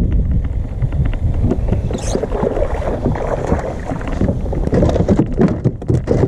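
Wind rumbling on the microphone out on a fishing kayak, with scattered small clicks and knocks.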